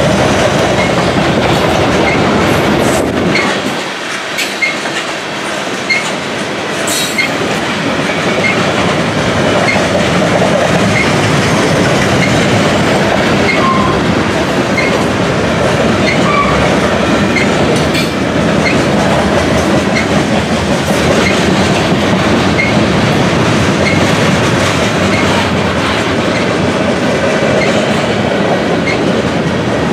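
Covered hopper cars of a freight train rolling past: a steady rumble of steel wheels on the rails, with faint ticks about once a second and a few sharper clicks.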